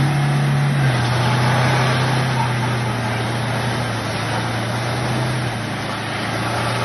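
Passenger van's engine held at steady revs while its drive wheels spin in mud, with a steady hiss over it. The engine note drops slightly about a second in and again near the end.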